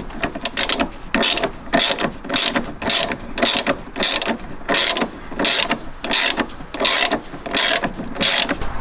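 Socket ratchet on a long extension clicking in quick repeated strokes, about three a second, as it tightens the centre bolt of a new engine mount.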